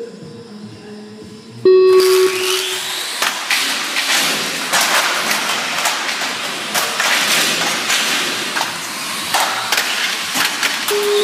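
A low held start tone about two seconds in, then a pack of radio-controlled streetstock cars racing on a concrete floor: a dense hiss of motors and tyres with whines rising in pitch as they accelerate, and many sharp knocks as the cars bump into each other. A steady tone starts near the end.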